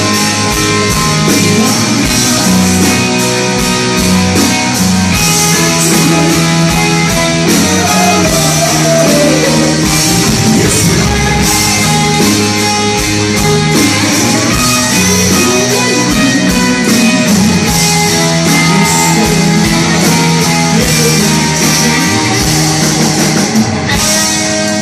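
Live rock band playing loud, with electric guitar through Marshall amplifiers, bass and drums, and a male singer's voice over the top.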